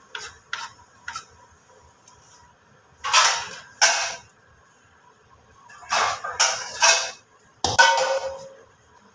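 A spatula scooping biryani rice out of a cooking pot and onto a serving platter. A few light taps come first, then three rough scraping passes of about a second each.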